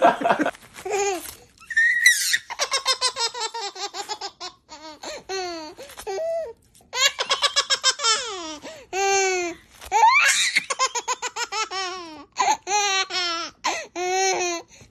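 A baby laughing hard: repeated runs of quick, high belly laughs with short gaps between them.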